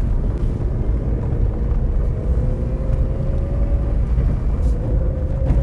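Car driving along, a steady low rumble with a faint whine that rises slightly in pitch.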